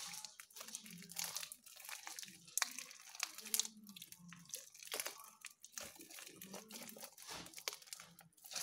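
A large homemade slime being kneaded, squeezed and stretched by hand while toothpaste is worked into it, giving irregular crackling and small clicking pops.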